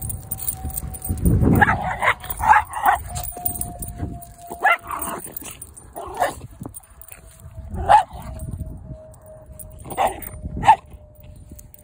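Small dogs barking and yipping as they play: a quick run of several sharp barks in the first few seconds, then single barks every second or two.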